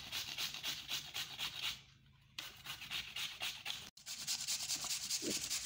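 Peeled pumpkin being grated on a coarse stainless steel hand grater: a rapid run of rasping strokes, with a short pause about two seconds in.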